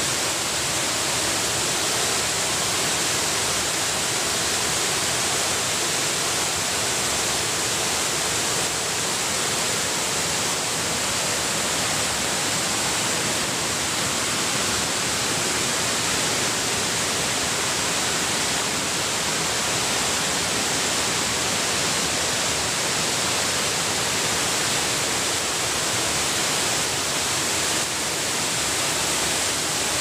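Waterfall spilling down broad stepped rock ledges: a steady, unbroken rush of falling water.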